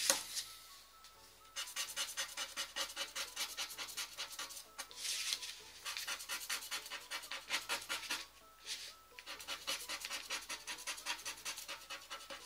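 Scratch card being scratched off with rapid back-and-forth strokes, several a second, in runs of a few seconds broken by short pauses.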